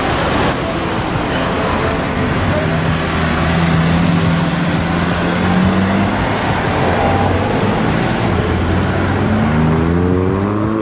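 Car engine running in street traffic, its pitch climbing as it accelerates near the end.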